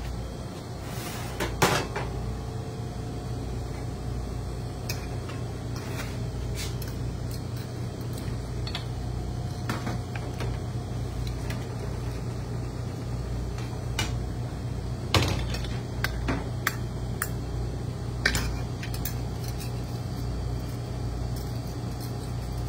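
Clinks and knocks of a metal pan and utensils against a ceramic pasta bowl as spaghetti is plated, a few sharp ones standing out, over the steady low hum of the kitchen's extraction hood.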